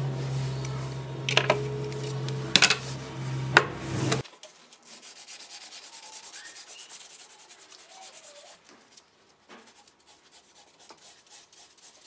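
Steady low hum with several sharp clicks as plastic quick-release bar clamps are handled on a wooden bench. The hum stops abruptly about four seconds in, and quieter, rhythmic rubbing follows, about four strokes a second, as a blue pad is rubbed along a shamshir's sword grip.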